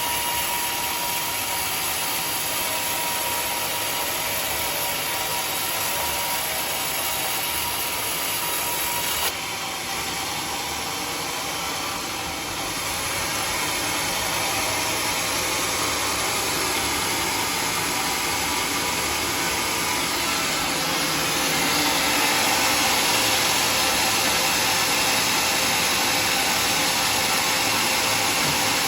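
Sawmill saw running and cutting through a teak log: a steady, loud machine noise. The sound changes abruptly about nine seconds in, then grows louder and brighter from about twenty-one seconds in.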